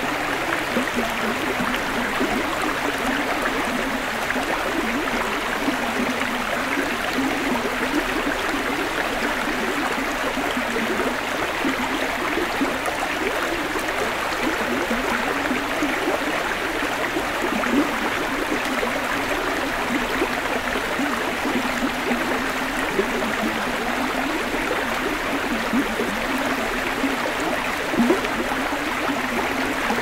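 Shallow, rocky forest creek running over stones: a steady babbling rush of water.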